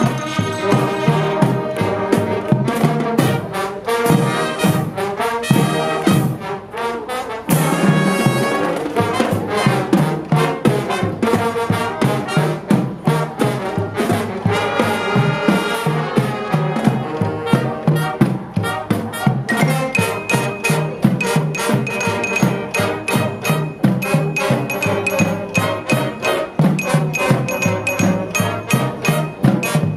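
Live marching band playing: trumpets and other brass with clarinets and saxophones over an even beat from marching drums. The band drops back briefly about six seconds in, then comes in again at full strength.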